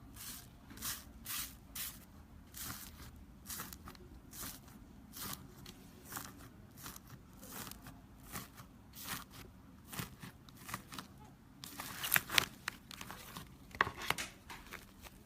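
Slime being pressed and worked by hand, giving a run of short, quiet crackling sounds about twice a second, with a louder cluster near the end.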